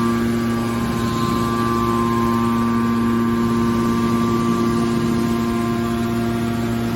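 Hydraulic scrap metal baler running, with the steady, even hum of its electric motor and hydraulic pump.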